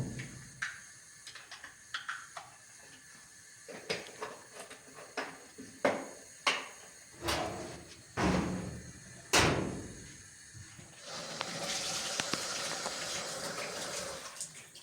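A string of about nine knocks and thuds from things being handled and set down, then a steady rushing hiss for about three and a half seconds near the end.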